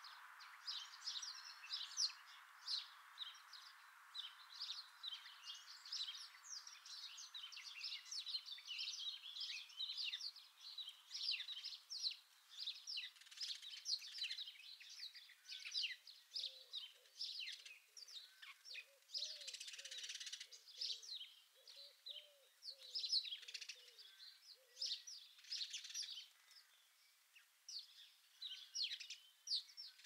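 Several garden songbirds chirping and singing at once, a busy mix of quick high notes and trills, with a faint steady hum underneath in the first third. A series of low, evenly repeated call notes joins in from about halfway through to about two-thirds.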